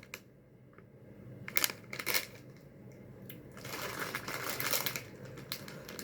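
A candy package being handled: two sharp clicks or taps, then a stretch of rustling and light clicking from about halfway through.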